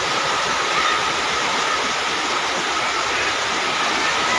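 Muddy flash-flood water rushing fast past a house: a steady, loud rushing noise.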